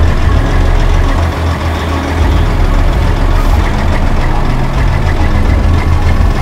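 Semi tractor's diesel engine running at low speed as the truck pulls slowly away, a steady deep engine note.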